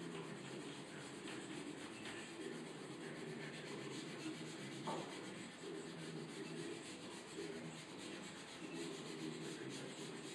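Wood being sanded by hand: continuous scratchy rubbing of sandpaper on a wooden cabinet, over a steady low hum.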